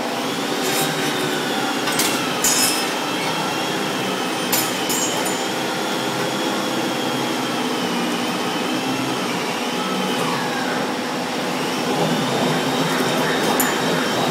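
Welding machine running: a steady hiss and hum with a high whine that wavers slowly in pitch, and a few sharp clicks.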